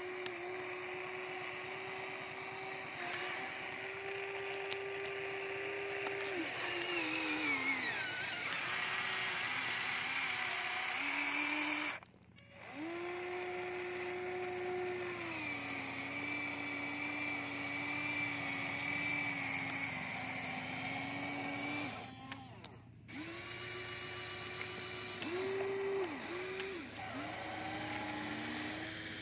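Electric motors and gearboxes of a Huina radio-controlled toy excavator whining as it digs and lifts soil. The pitch steps up and down as the arm and boom change movement, and the whine cuts out briefly twice.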